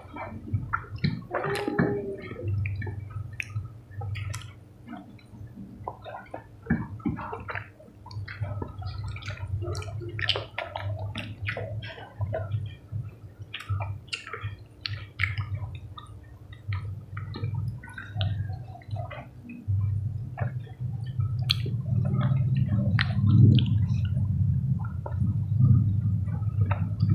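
Close-miked wet eating sounds: chewing, slurping and lip-smacking of ripe mango flesh, with many small mouth clicks. A low hum runs underneath and grows louder near the end.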